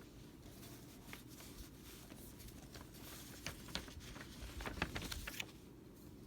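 Quiet room tone with a few faint light clicks and rustles, mostly in the second half.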